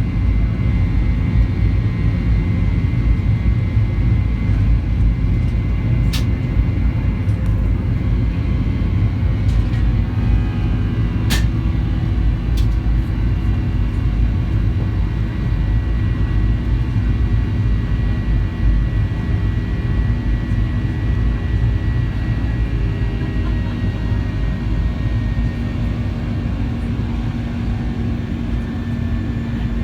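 Cabin noise of a Boeing 737-800 under power: a steady, loud low rumble from its CFM56 jet engines and airflow, with a faint high steady whine. A few sharp clicks come about six and eleven seconds in.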